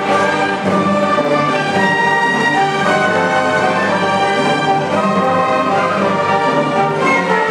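Youth symphony orchestra playing, with bowed strings holding sustained notes at a steady, loud level.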